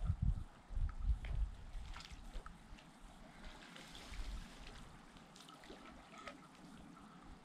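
Shallow river trickling and gurgling over stones, with small splashes and drips scattered through it. Wind buffets the microphone with a low rumble during the first second or so.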